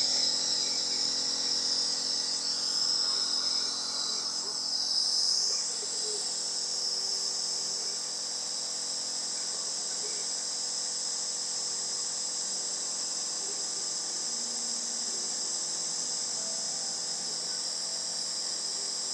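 Compressor nebulizer running: a steady motor hum under a high hiss of air and mist. The hiss is a little louder and uneven for the first few seconds, then settles to an even level.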